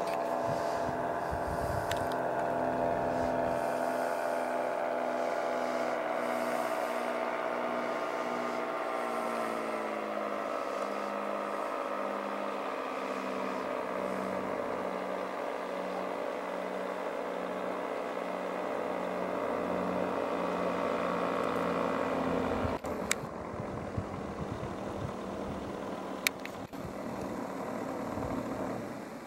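Paramotor engine and propeller droning overhead, dropping in pitch twice as it is throttled back. At about 23 s the drone gives way to a quieter, rushing noise with a couple of sharp clicks.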